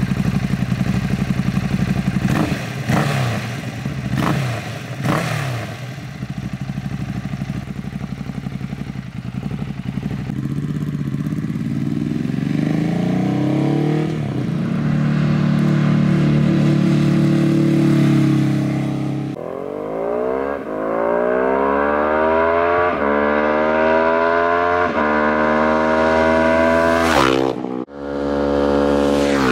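Ducati Hypermotard 821 Testastretta 11° L-twin through a REMUS HyperCone slip-on exhaust: three quick revs from a standstill in the first few seconds, then the pitch climbs steadily as the bike pulls away. In the second half it accelerates hard through several gears, each run rising in pitch and dropping back at the upshift about every second and a half to two seconds.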